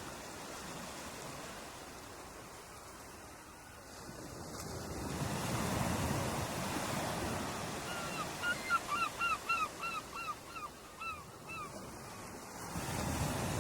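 Ocean waves washing onto a beach, one wave surging in about five seconds in and another near the end. From about eight seconds a bird gives a quick run of about a dozen short, hooked calls.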